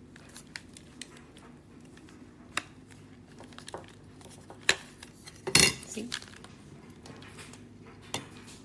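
Scattered light clicks and knocks of hard objects being handled and set down, with a louder short clatter about five and a half seconds in.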